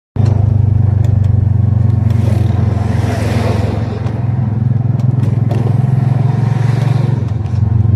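Motorcycle engine running steadily at cruising speed, a constant low drone, with wind and road rush. A rushing swell in the middle as a dump truck passes in the other lane.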